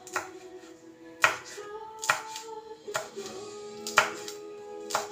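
Kitchen knife chopping green chilies on a plastic cutting board, with a sharp knock about once a second.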